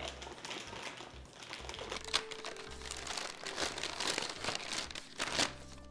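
Stiff brown paper wrapping crinkling and rustling as it is pulled open from around a rib roast, with sharper crackles about two seconds in and near the end.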